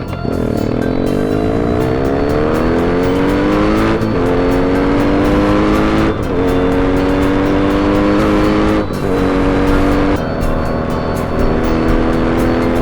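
BMW R1200GS boxer-twin engine pulling hard through the gears, its pitch climbing in each gear and dropping at several quick upshifts. Music plays underneath.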